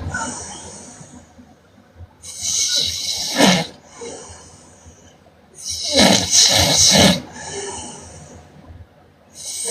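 A woman snoring: two loud snores about three and a half seconds apart, each followed by a softer, fading breath, with a third snore starting near the end.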